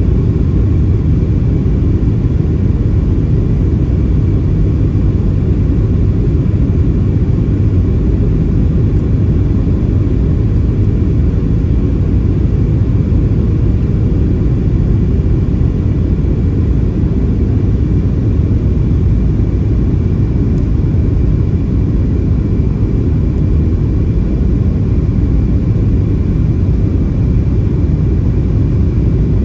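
Steady cabin noise inside a Boeing 737-700 on approach: a low rumble of airflow and its CFM56-7B engines, unbroken throughout, with faint steady tones above it.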